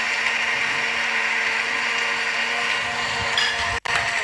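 Electric blender running steadily, churning grape juice and crushed ice into a slush. It cuts out near the end.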